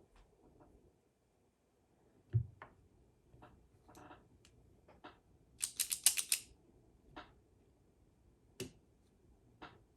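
Scattered single keystrokes on a mechanical keyboard with lubed, filmed Cherry Vintage Black linear switches and GMK keycaps on an aluminium plate, with a heavier thud about two and a half seconds in and a quick run of keystrokes around six seconds in.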